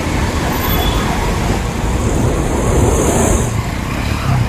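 Road traffic crawling through knee-deep flood water: vehicle engines running with the wash of tyres through standing water, and a brief hiss about halfway through.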